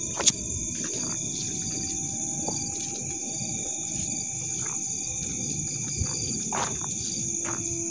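Night insects droning steadily at a high pitch over a low, steady noise, with a sharp click just after the start.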